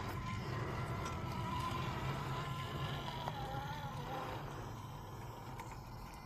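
Class 2 RC rock crawler's electric drivetrain whining as it crawls over rock, the whine wavering up and down in pitch with the throttle. It eases off a little near the end.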